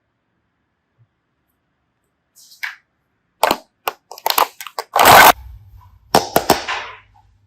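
Slime being squeezed and poked by hand: a run of sharp crackles and snaps starting about three and a half seconds in, the loudest a short burst about five seconds in.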